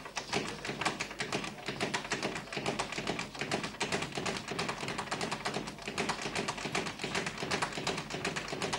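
Boxing speed bag being worked in a fast, steady, rattling rhythm of many taps a second, stopping just at the end.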